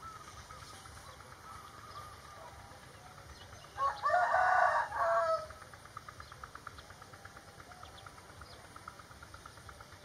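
A rooster crows once, about four seconds in, one loud call lasting about a second and a half. Faint bird chirping and ticking sounds come before and after it.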